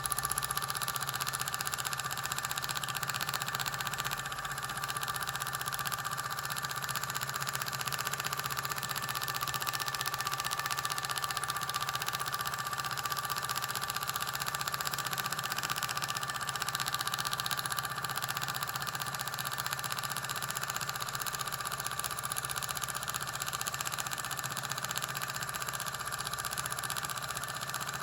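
Dot peen marking machine running, its needle striking rapidly to mark metal, giving a steady buzz with a constant pitch.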